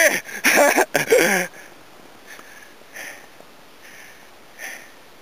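A person's voice calling out for about a second and a half, wavering in pitch, then a few soft, short breaths close to the microphone.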